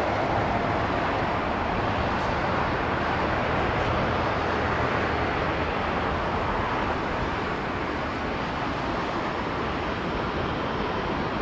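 Jet airliner engine noise close by, a steady rushing sound that eases slightly near the end.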